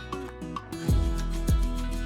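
Background music: a plucked-string melody over a steady beat of deep thumps that comes in about a second in.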